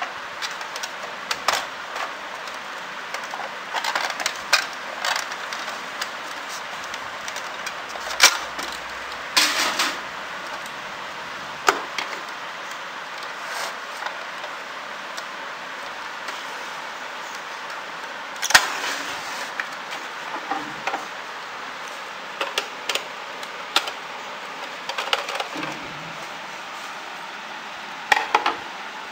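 Scattered plastic clicks and knocks from an Epson L-series ink tank printer being handled and taken apart, its casing, ink tank unit and frame bumping and rattling at irregular moments over a steady hiss.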